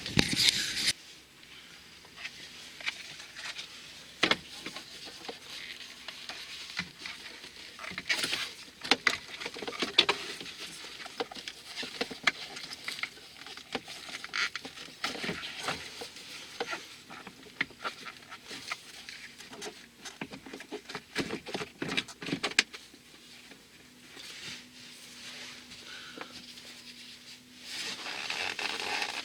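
Irregular clicks, taps and light rattles of hand work on a van's dashboard and blower-motor parts, busiest in the middle stretch.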